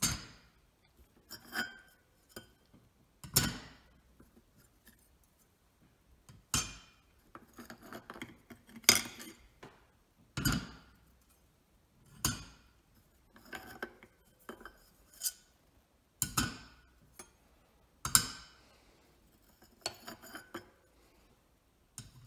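Metal clutch discs from a John Deere 60 PTO clutch pack clinking as they are slid off the splined hub and set down one by one on a stack. There are about a dozen sharp, ringing clinks, irregularly spaced a second or two apart.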